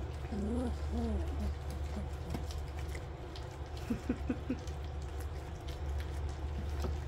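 Goldendoodle puppies eating wet, blended kibble mush from a shallow steel pan, with wet lapping and smacking clicks. There are a few short, squeaky whimpers in the first second and a half.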